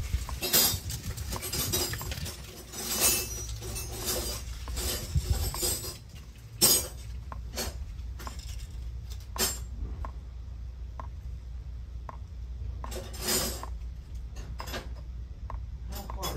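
Metal hand tools clinking and clattering: a wrench and socket at work on the steering rack's 18 mm mounting bolts, with scattered separate clicks and knocks over a low steady hum.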